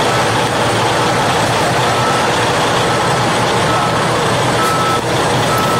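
Backup alarm on heavy construction machinery beeping about once a second at one steady pitch, over the steady running of the machine's engine.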